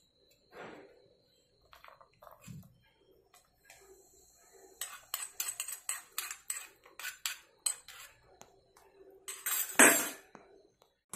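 Steel spoon clinking and scraping inside a small steel tempering ladle, a quick run of taps, as ghee-fried cashews, almonds and raisins are pushed out into the payasam. Near the end a louder clatter of the spoon in the steel pot as stirring begins.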